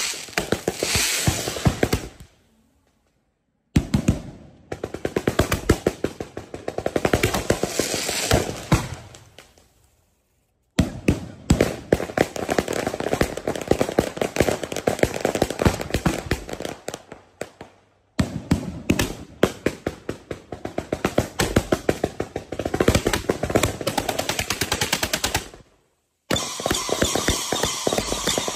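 A rapid-fire firework barrage from a fan-shaped rack of firework tubes: dense volleys of fast shots. Sudden short silences break it several times, and more crackle joins in near the end.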